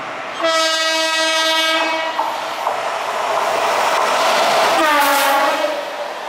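WAP-7 electric locomotive sounding its horn as it runs through a station at high speed: one long steady blast, then a second shorter blast that drops in pitch as the locomotive passes, over the rising rush of the train on the rails.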